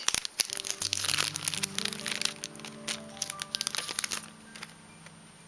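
Foil booster-pack wrapper crinkling and tearing as it is pulled open, a dense run of sharp crackles that dies away after about four seconds. From about a second in, held musical notes play underneath.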